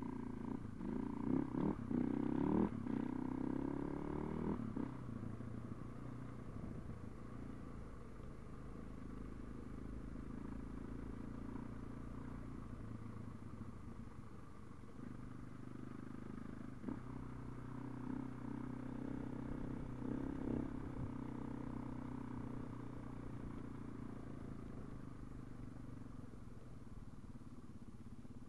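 Husaberg FE 570 single-cylinder four-stroke dirt bike engine, heard from a helmet-mounted camera, revving up and down through the first few seconds, then running at a steadier, lower pitch.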